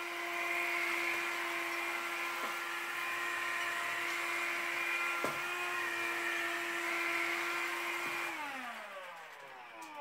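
CLEANmaxx cordless bagless cyclone vacuum cleaner with its electric floor nozzle running over car boot carpet: a steady high motor whine. A little past eight seconds in the motor is switched off and the whine falls in pitch as it spins down.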